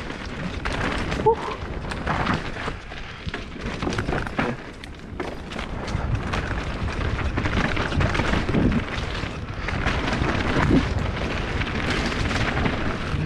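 Mountain bike riding fast down a dirt woodland trail: tyres rumbling over the ground, with many knocks and rattles from the bike over bumps, and wind buffeting the microphone with a low rumble. It eases off briefly about four seconds in.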